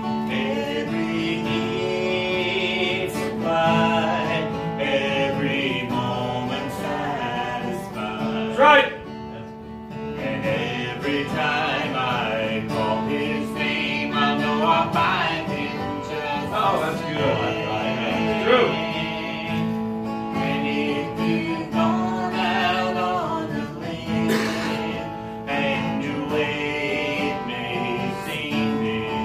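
A man and a woman singing a gospel song together, accompanied by a strummed acoustic guitar, with a short break about nine seconds in.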